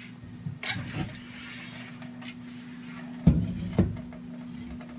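A few light clicks and knocks from 3D printer parts being handled, the two loudest about half a second apart a little past the middle, over a steady low hum.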